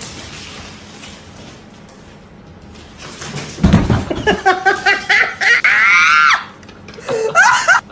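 Low background noise, then about halfway in a high-pitched voice shrieks loudly several times, its pitch sliding up and down, with one more rising shriek near the end.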